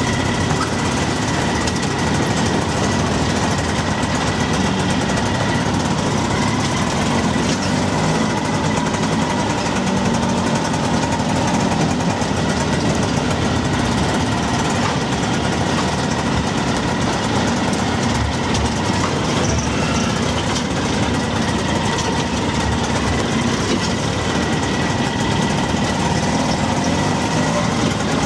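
Auto rickshaw's small engine running steadily, heard from inside its open cabin, with a faint steady whine over the rumble.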